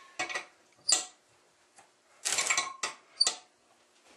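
Wrench working on two nuts locked against each other on an engine stud: sharp metal clicks and clinks, with a quick run of clicks about two seconds in and two sharp ones near the end.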